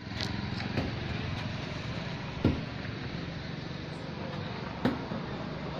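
A steady low engine hum, with two sharp knocks: one about two and a half seconds in and a second near five seconds.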